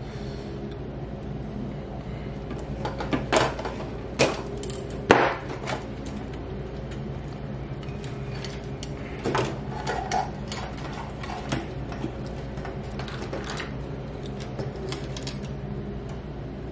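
Hand work on wiring: a wire stripper, wires and plastic fluorescent lamp-holder parts handled on a tabletop, giving a scattered series of clicks and clacks, loudest about five seconds in, over a steady low hum.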